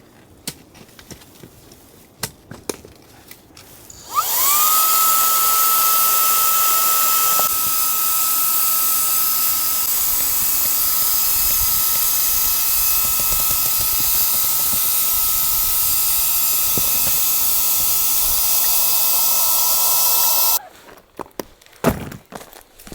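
A small high-speed electric motor spins up about four seconds in, its whine climbing quickly to a steady high pitch. It runs with an even whirring for about sixteen seconds, then cuts off suddenly, followed by a few light knocks.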